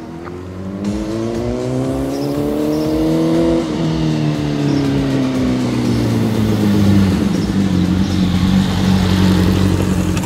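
Sport motorcycle engine revving, its pitch rising for about three and a half seconds, then dropping suddenly and falling away gradually before settling into a steady low running note for the last few seconds.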